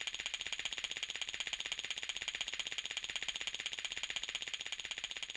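Cartoon sound effect: a steady, rapid, high-pitched ringing rattle, like an electric alarm bell, at about ten strikes a second.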